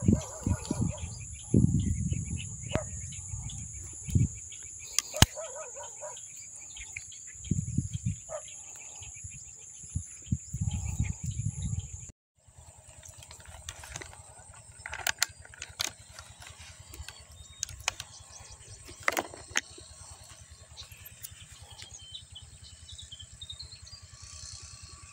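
Steady high-pitched insect drone, with low rumbling knocks and a few sharp clicks of handling in the first half.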